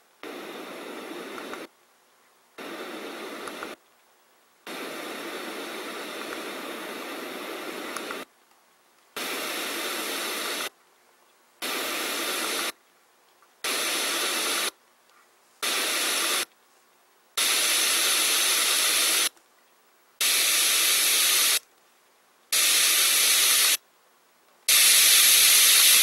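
ANFURIG HFD-600 white noise machine's speaker playing its white noise settings one after another: steady hiss in stretches of one to three seconds, each cut off by about a second of silence as the button steps to the next setting. The later settings are louder and brighter-sounding than the first ones.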